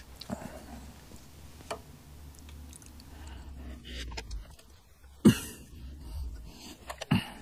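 A few sharp metallic clicks and clunks, the loudest about five seconds in and another near the end, as the side-stand return spring on a Honda CB200 is wrenched onto its lug with a hand tool.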